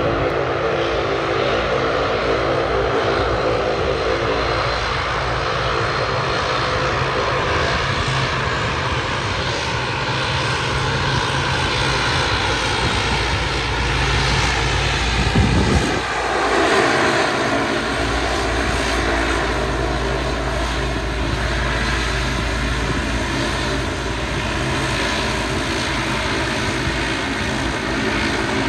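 Jet airliner engines running steadily with a whine of several held tones as a FedEx cargo jet moves past on the airfield. A short low rumble about halfway through.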